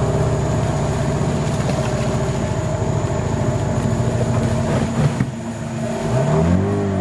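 Motor canoe's engine running steadily with a throbbing note. Near the end its pitch swoops up and back down as the throttle changes.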